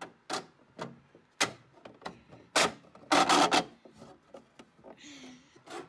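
3D-printed PLA plastic parts scraping and knocking against each other as the wheel compartment is pushed and seated into the feeder's shell: a series of short scrapes and taps, with a longer rub just past three seconds in.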